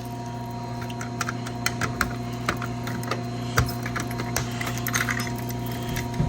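A fire alarm pull station being handled: irregular light clicks and small rattles, over a steady hum.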